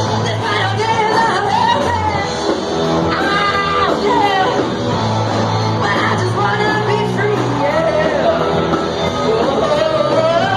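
A rock band playing live, with a singer's sung and shouted vocals over the band.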